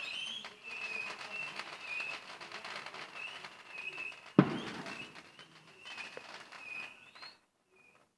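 Fireworks going off: a steady crackle with a short high warbling tone repeating every half second or so, and one loud bang about four and a half seconds in. The sound cuts off abruptly near the end.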